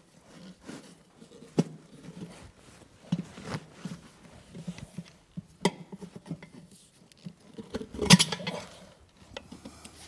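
Metal pry bars clicking and scraping against a wheel rim as a tire bead is levered over it by hand: irregular small knocks, with a louder clatter about eight seconds in.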